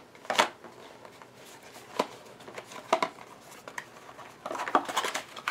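Light clicks and taps from a small box being handled and opened, a stroke every second or so, with a denser patch of rustling and clicking near the end.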